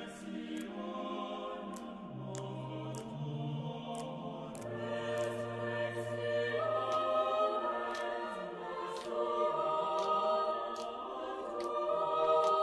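Background music of choir-like voices holding long, slowly changing notes, with light ticks in the upper range about once a second.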